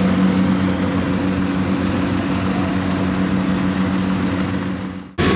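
Kubota DC-70 rice combine harvester's diesel engine running with a steady-pitched drone. It fades out just before the end, then the engine sound cuts abruptly back in.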